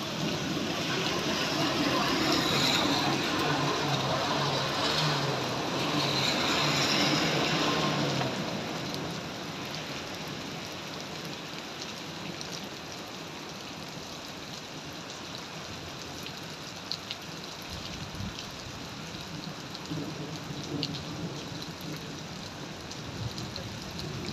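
Heavy rain pouring onto a road, louder and fuller for the first eight seconds or so, then settling to a steady hiss with scattered drops ticking close by.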